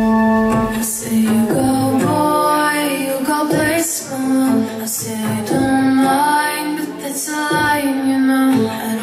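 Song with a woman singing a melody in long held notes, the dancer's performance track.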